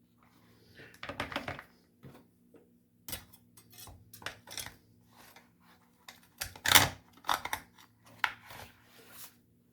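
Irregular clicks, taps and clatter of hard tool parts being handled and fitted together on a workbench, with the loudest knock a little before seven seconds in.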